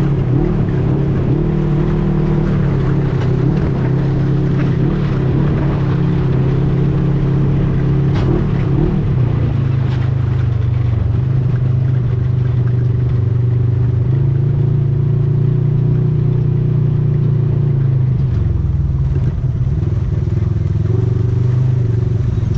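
Off-road ATV engine running steadily under way, its pitch shifting down and back up as the speed changes, once about halfway through and again near the end.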